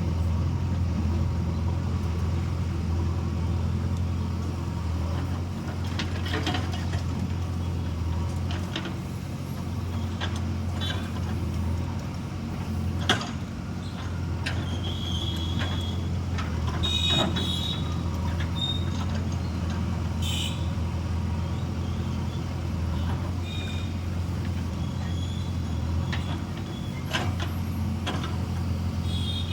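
Diesel engine of a JCB 3DX backhoe loader running steadily, with scattered metal knocks and clanks from the digging work; the sharpest knock comes about thirteen seconds in.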